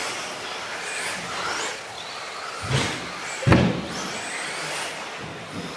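Radio-controlled 2wd off-road buggies racing on a carpet track, their motors whining and sweeping up and down in pitch as they accelerate and brake. Two sharp knocks about three seconds in, the second the loudest, as a car strikes something.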